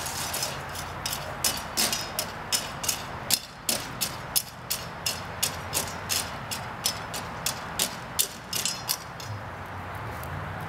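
A broom sweeping the ground in quick, regular strokes, about two to three a second, stopping about nine seconds in. A faint low hum runs underneath.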